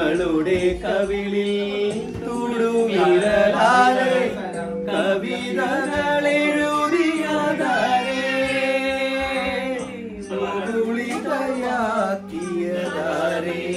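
Music with singing: a voice carries a slow, bending melody over a steady held low note.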